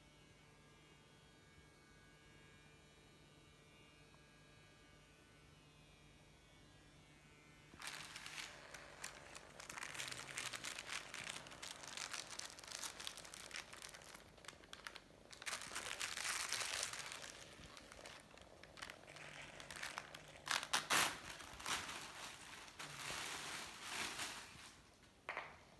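Clear plastic wrapping crinkling loudly in irregular bursts, starting about eight seconds in and peaking near the end. Before that, only a faint steady electric buzz.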